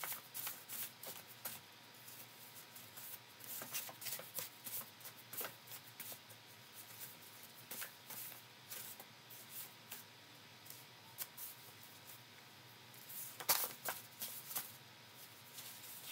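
A deck of cards being shuffled by hand: quick, irregular papery snaps and slides of card on card, with a louder flurry near the end.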